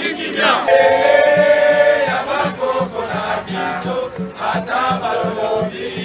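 A crowd singing and chanting together in unison, with a steady low beat of about three a second coming in after the first second or so.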